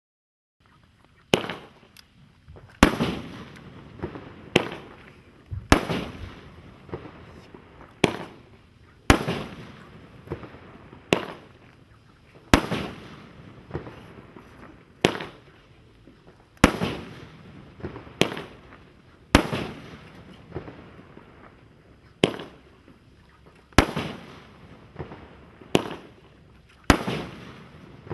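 500-gram consumer fireworks cake ('No Guts No Glory') firing shot after shot: a sharp bang about every second, each trailing off before the next.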